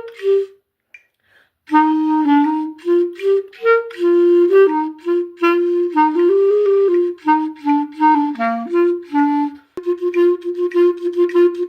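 A single woodwind instrument practising a band part at reduced tempo: a short break about half a second in, then a phrase of separate notes moving up and down, and near the end a fast run of repeated notes on one pitch.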